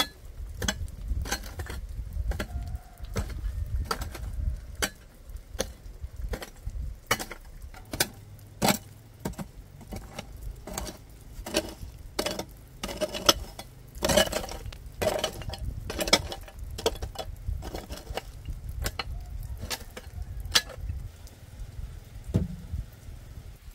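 Irregular sharp knocks and clinks of hard objects being handled, coming thick and fast around the middle, over a low rumble.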